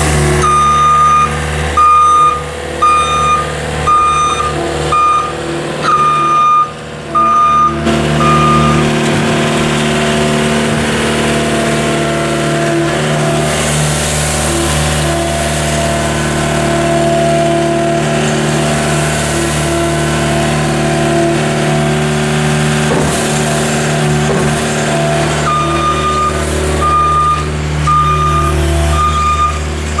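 John Deere skid steer's engine running under load as it works. Its reverse alarm beeps steadily for the first several seconds and again near the end while the machine backs up.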